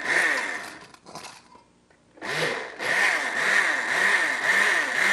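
Countertop blender pulsed on a liquid tofu custard mix: a burst that dies away about a second in, a brief blip, a short pause, then the motor runs steadily from about two seconds in.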